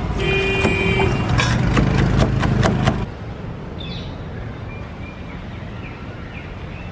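A fork beating eggs in a steel bowl, rapid metallic clinks about five a second, over a low traffic rumble. About three seconds in this cuts to a quieter steady sizzle of butter and egg mix on a hot flat griddle.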